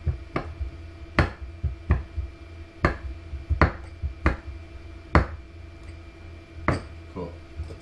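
Kitchen work at the counter: about eight sharp knocks at uneven intervals, a utensil or container striking a hard surface, over a steady hum.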